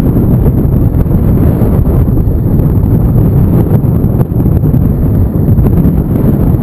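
Storm wind buffeting the camera's microphone: a loud, continuous low rumble that flutters with the gusts.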